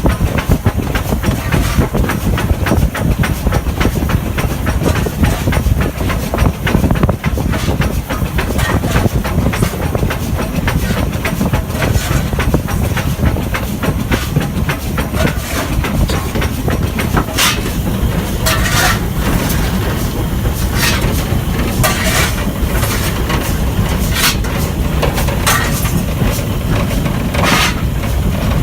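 Stanier 8F 2-8-0 steam locomotive running along the line: a steady low rumble with rapid rhythmic beats. From about halfway through come several short, sharp hisses.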